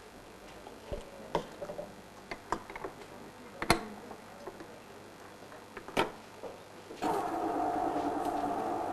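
Scattered light knocks and clicks of kitchen items being handled on steel shelving, with two louder clacks about four and six seconds in. A steady hum starts about two seconds before the end.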